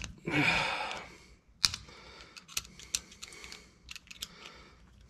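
Small metal hand tool clicking and scraping at the little square key that locks the axle nut in the rear axle tube: a string of sharp, irregular clicks, after a short breathy rush about half a second in.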